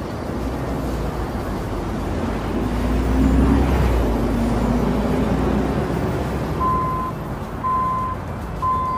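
Truck engine running with a deep rumble that swells a few seconds in, joined in the last couple of seconds by a reversing alarm beeping about once a second.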